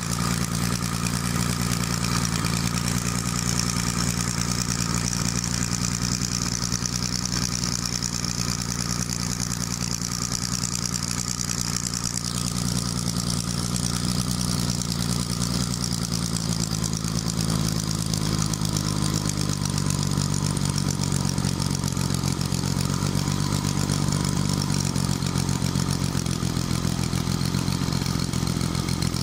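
Homemade 60 cc three-cylinder model ship's diesel engine running steadily, with a slight change in its note about halfway through.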